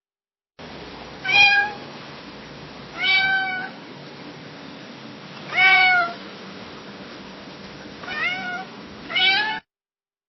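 Domestic cat meowing five times at uneven intervals, each meow rising and then falling in pitch, over a steady background hiss; it stops abruptly near the end.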